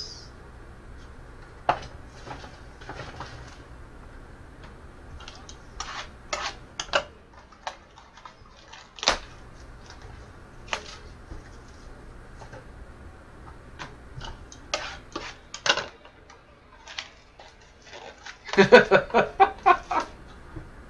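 Hands opening a sealed trading-card box: scattered clicks, taps and rustles of cardboard and plastic wrap, then a dense burst of crinkling near the end as the cellophane is torn off.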